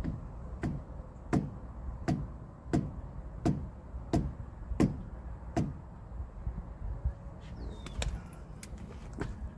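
Hand tool working on the front axle hardware: nine sharp knocks in a steady rhythm, about three every two seconds, then a few lighter, scattered clicks near the end.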